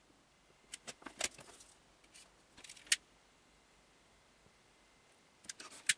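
Light handling clicks and rustles of a cable and heat-shrink tubing being worked by hand, a scatter in the first three seconds ending in one sharp click, then a few more clicks near the end.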